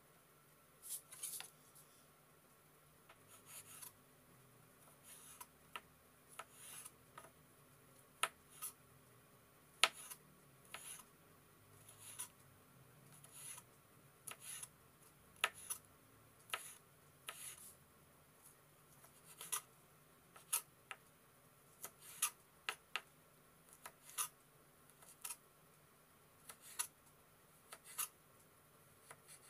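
Kitchen knife slicing a carrot into thin strips on a wooden cutting board: irregular sharp knocks of the blade meeting the board, about one or two a second.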